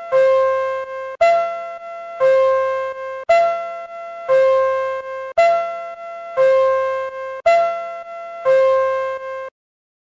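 Electronic two-tone chime of a Takamisawa Cybernetics platform screen door on the Tohoku Shinkansen, the signal that the doors are opening: a high note then a lower note, each about a second long and fading, repeated as a 'peen… pawn…' about five times, then stopping near the end. Taken directly from the chime unit, not through a platform speaker.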